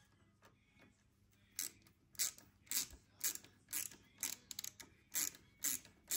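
Hand ratchet on a socket extension swung back and forth in short strokes, the pawl clicking about twice a second from about a second and a half in.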